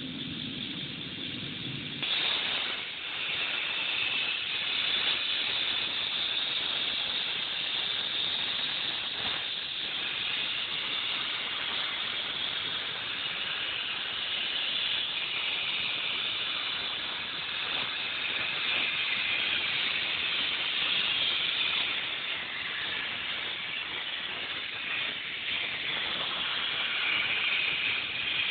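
Portable CNC plasma cutter's torch arc striking about two seconds in with a sudden loud hiss, then hissing steadily and high-pitched as it cuts through metal plate. Before the arc strikes there is a low hum.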